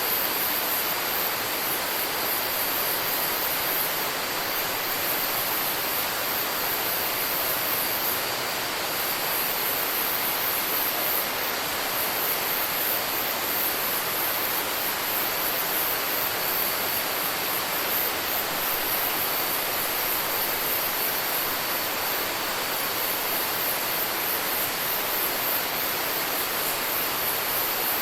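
Rainforest ambience: a steady wash of noise under a high-pitched insect chorus that swells and briefly drops out every few seconds, with a thin steady whine beneath it.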